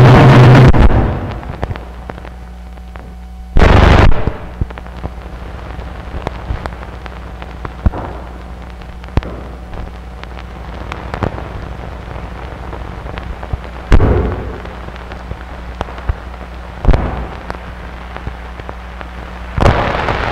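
Experimental noise music: a steady low hum full of crackle and scattered clicks, broken by loud bursts of crackling noise at the start, around four seconds in, twice more in the second half, and again near the end.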